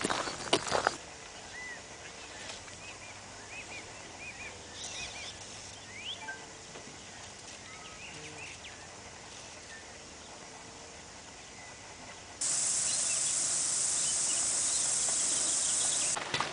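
Footsteps on a gravel track at the very start. Then scattered short bird chirps over a quiet outdoor background. About twelve seconds in, a loud, steady high-pitched cicada drone cuts in and stops suddenly near the end.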